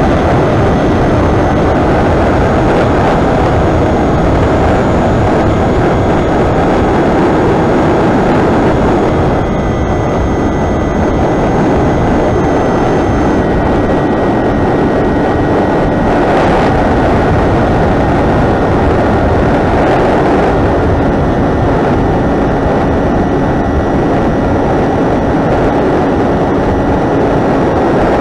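Onboard sound of an AR Pro 1000 FPV flying wing in flight: heavy wind rush on the airframe's camera microphone, with the steady high whine of its brushless electric motor and propeller underneath, shifting slightly in pitch now and then with throttle.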